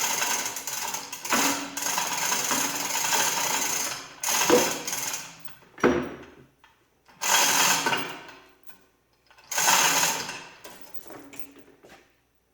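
Mechanical clatter from a hoist lifting a John Deere 4020 engine block. The clatter runs for about four seconds, then comes in four shorter bursts with pauses between them.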